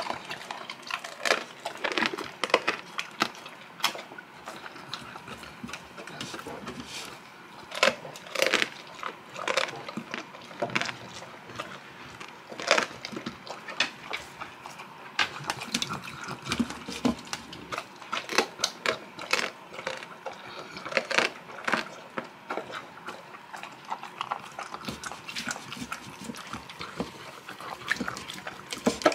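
Saint Bernard eating raw chicken from a metal bowl: chewing and gulping, with irregular sharp crunches every second or so.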